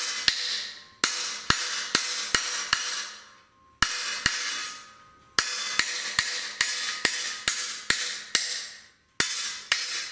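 Hammer striking a punch to drive old dowel pins out of a V8 engine block: sharp, ringing metal-on-metal blows in quick runs of several strikes, about three a second, with short pauses between the runs.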